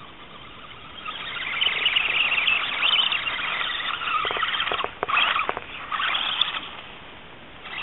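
Electric motor and gear train of an R/C rock crawler whining as it drives and climbs over rocks. It starts about a second in, breaks off briefly a few times around the middle, and eases off near the end, with a few sharp clicks around the middle.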